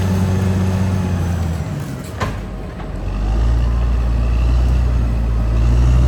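Caterpillar D6R XL bulldozer's diesel engine running under load. It drops off about two seconds in, with one sharp metallic clank, then builds back up.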